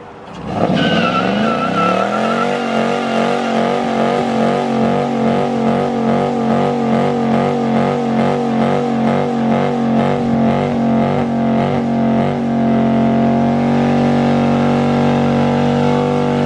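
Dodge Charger's Hemi V8 at high revs during a burnout, rear tyres spinning on concrete. The revs climb sharply at the start, hold high with a quick, even pulsing, then run as a steady high note from about twelve seconds in.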